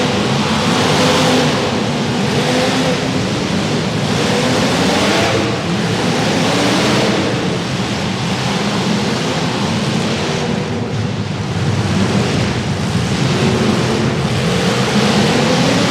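Demolition derby car engines revving hard and running at high throttle, their pitch rising and falling over a loud, rough noise that surges every second or two.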